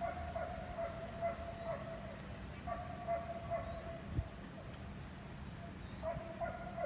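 A dog whining in long, high-pitched whines that waver slightly: one of about two seconds at the start, a shorter one a little before the middle, and another near the end. A single dull thump comes a little past the middle, with faint short rising chirps above.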